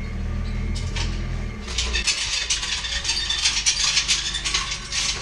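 Forklift engine running low, then about three seconds of clattering and scraping as a heavy shrink-wrapped pallet is shifted on the forks against the cargo van's metal floor. A faint reversing beeper sounds at the very start.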